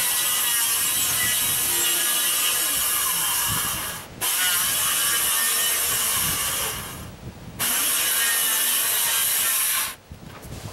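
Circular saw cutting plywood roof sheathing along the peak, in three long cuts: it stops briefly about four seconds in, runs down around seven seconds, and starts again until shortly before the end.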